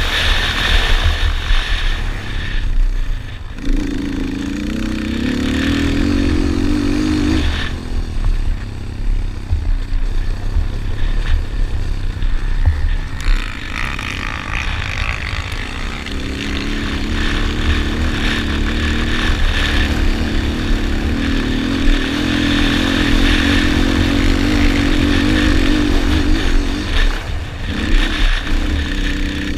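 Yamaha Raptor 250 quad's single-cylinder four-stroke engine racing, revving up for several-second stretches and dropping off in between as the throttle is worked, with heavy wind rumble on a helmet-mounted microphone.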